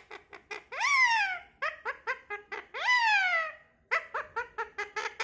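Parrot calling: rapid runs of short, clipped notes, broken twice by a long call that jumps up in pitch and then slides down.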